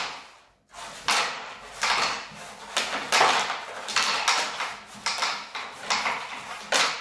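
Pucks being shot across a homemade wooden pucket board, clacking against its wooden walls and against each other in a quick, irregular string of sharp knocks that starts after a brief pause.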